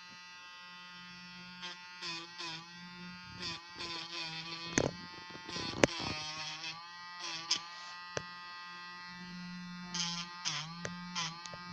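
Small electric pet nail grinder running as it files a dog's claws: a steady buzzing whine that dips in pitch briefly several times, with a few sharp clicks around the middle.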